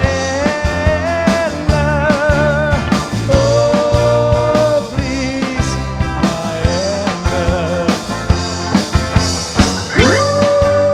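Live band playing an instrumental rock-and-roll passage: a lead melody instrument holds long wavering notes over steady drums and bass, with one note sliding up into a long held note near the end.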